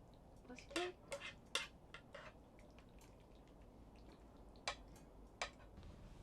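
Utensils clinking and tapping against dishware, a quick cluster of light strikes in the first two seconds and two single taps near the end.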